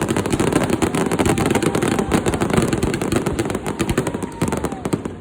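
Fireworks display going off in a dense, rapid barrage of crackling bangs, thinning out near the end. A faint gliding whistle sounds in the middle.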